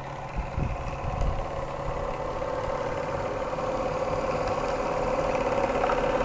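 Twin-cylinder model steam engine running at a steady pace, with a fast even beat that grows louder through the second half. There are a couple of dull knocks within the first second.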